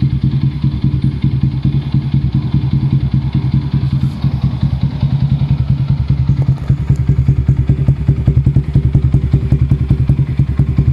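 Yamaha Y15ZR's 150 cc single-cylinder four-stroke engine idling through a UMA Racing True Pressure aftermarket exhaust: a steady, rapid pulsing beat that grows a little louder about six seconds in.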